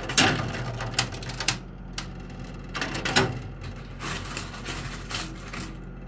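Coins clinking and clattering inside a coin pusher arcade machine, a scattering of separate metallic clicks over a steady low machine hum.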